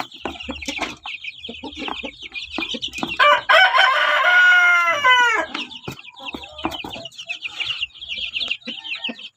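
A rooster crows once, starting about three seconds in: a long held call of about two seconds that falls away at the end. Around it, chickens call constantly, with a few scattered knocks.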